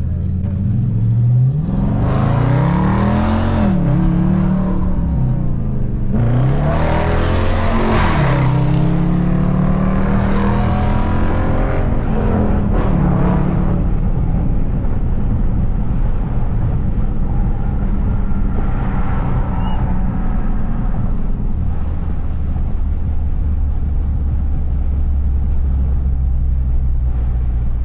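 Dodge Charger R/T's V8 engine revving: its pitch climbs and falls several times, dropping suddenly now and then, then settles into a steady low running note for the rest of the time.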